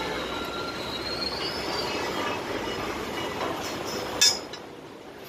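Steel scaffold coupler being worked onto a scaffold tube, with a single sharp metal click about four seconds in. Under it runs a steady rumble of site noise, and a faint high squeal rises in the first two seconds.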